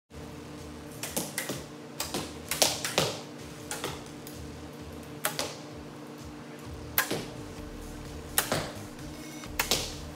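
Compound bows shot one after another along an indoor archery line: a dozen or so irregular sharp cracks, some in quick pairs, ringing briefly in the metal building.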